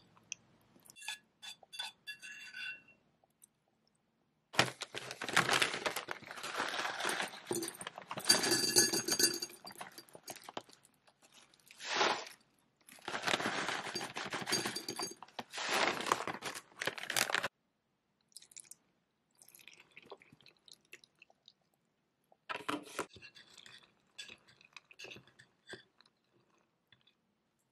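A metal spoon clinking and scraping in a ceramic mug, then a crinkly plastic bag rustling loudly while dry cereal is poured into the mug for several seconds. After that, fainter clinks and scrapes of the spoon stirring cereal in milk in the mug.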